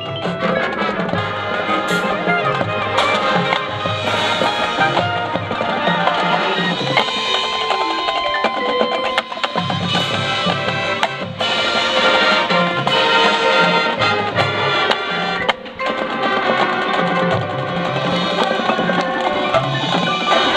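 High school marching band playing its competition field show: brass and mallet percussion over drums. The music drops back briefly twice, about 9 and 15 seconds in.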